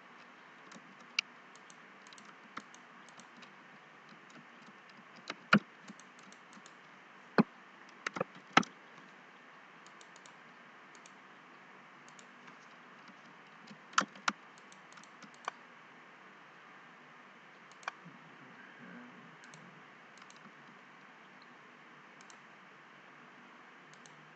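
Scattered computer keyboard keystrokes and mouse clicks, irregular and of varying loudness, over a steady faint hiss.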